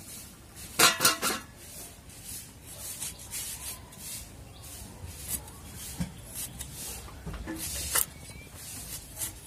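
A mango being sliced and scraped against the edge of a boti, a fixed upright floor blade: soft scraping and cutting strokes, with a sharper clatter about a second in and a single click near the end.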